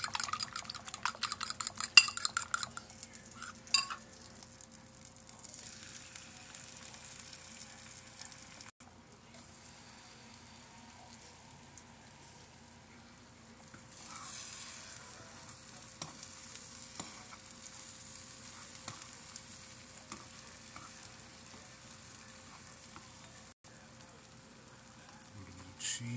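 A bowl of ingredients stirred fast, the utensil clicking rapidly against its side for the first few seconds. Then eggs with peppers and sausage sizzling steadily in a frying pan, louder from about fourteen seconds in.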